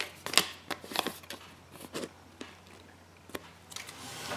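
Small paper leaflet from a Kinder Surprise egg crinkling as it is handled and folded in the fingers: a run of crisp crackles, thinning out, then a soft rustle near the end.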